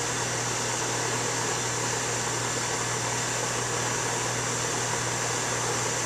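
Air conditioner's outdoor condensing unit running steadily: even fan and compressor noise over a low steady hum.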